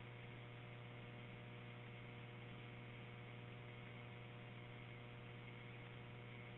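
Faint steady electrical hum with a few thin steady tones and light hiss on a recorded fire-dispatch radio channel, with no voice on the air. The sound is narrow, like a radio transmission.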